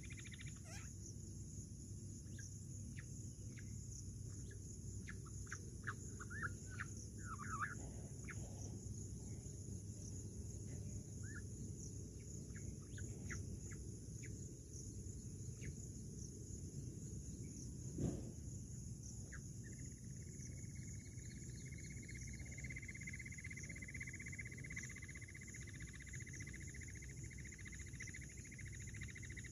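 Short, high bird chirps scattered through the first half over a steady high insect drone. A single sharp knock comes about 18 seconds in, and from about 20 seconds on a steady high insect trill joins.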